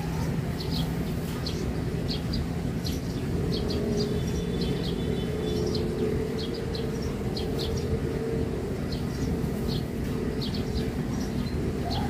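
Small birds chirping, short high calls repeated many times, over a steady low background rumble.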